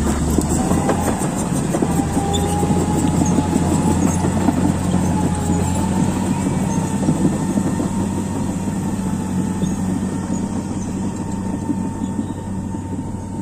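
Komatsu D155A crawler bulldozer working under load: a steady diesel drone with a wavering whine above it and the rattle and clank of its steel tracks. It eases off slightly near the end.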